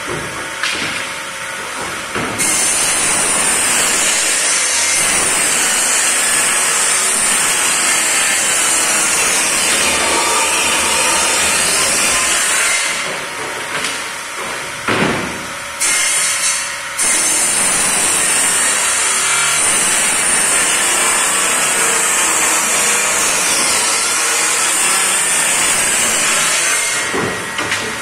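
Sliding-table circular saw cutting through plywood sheets: two long cuts with a high, hissing blade-in-wood noise, the first from about two seconds in to about thirteen seconds, the second from about seventeen seconds to near the end. Between the cuts the saw runs more quietly, and a sharp knock comes about fifteen seconds in.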